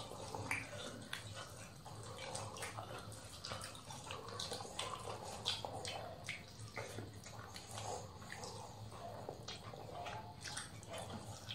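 Wet chewing and lip smacking close to the microphone, with fingers squishing rice and curry on a banana leaf: a run of irregular short clicks and squelches over a low steady hum.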